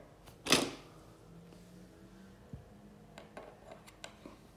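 Faint, light clicks of a plastic LEGO minifigure being tapped and walked across a wooden surface by hand, after a short breathy rush of noise about half a second in.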